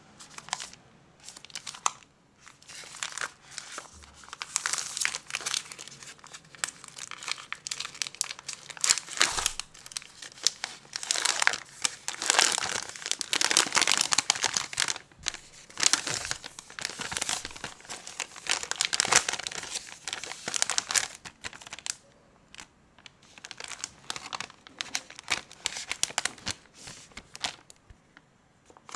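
Wrapper of a large Milka Mmmax chocolate bar crinkling as it is pulled open by hand and the inner wrap unfolded, in dense irregular bursts that thin out and grow quieter for the last several seconds.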